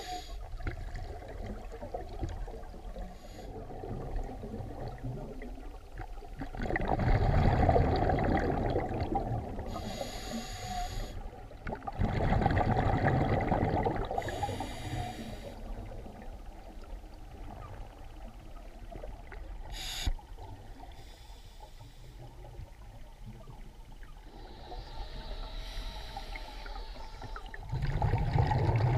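Scuba regulator breathing, heard underwater: two long rushes of exhaled bubbles and a third starting near the end, with short hissing inhalations between them.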